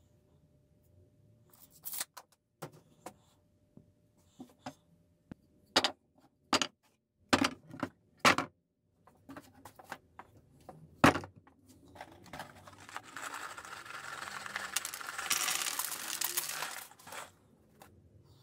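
A string of sharp knocks and clacks of boards and tools handled on a wooden bench. Then a DeWalt 18V cordless impact driver drives screws into scrap board for about five seconds and stops abruptly.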